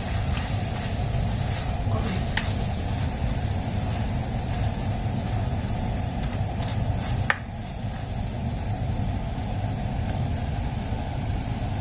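Sliced kebab meat and tomatoes sizzling in a stainless steel frying pan while being stirred with a plastic spoon, with occasional clicks and scrapes of the spoon against the pan; one sharp click comes about seven seconds in.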